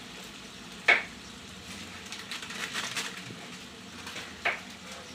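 Shallots and whole spices sizzling in oil in a large aluminium pot, a soft steady sizzle with light crackles, and a sharp click about a second in and again near the end.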